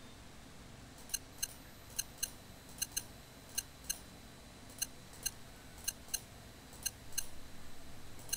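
Computer mouse button clicking: sharp single clicks in pairs about a third of a second apart, roughly one pair a second, starting about a second in.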